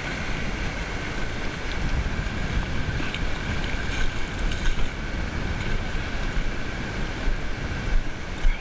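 Wind rumbling on the microphone over the steady wash of shallow surf, with a few light splashes from boots wading in the water around the middle.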